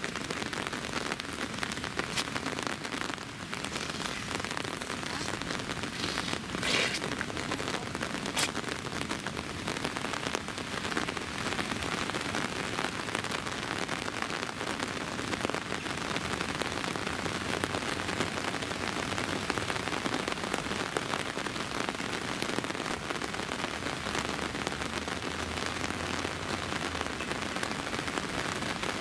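Steady rain falling on wet stone paving, a dense even hiss of drops.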